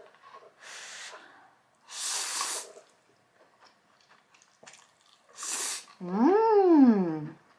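Close-up eating sounds: a few short, breathy slurps of hot ramen noodles, then a loud hummed "mmm" that rises and falls in pitch as she savours the mouthful.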